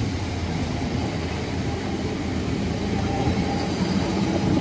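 Diesel engine of a tracked rice combine harvester running steadily as the machine drives across the stubble loaded with rice sacks, getting a little louder as it comes closer.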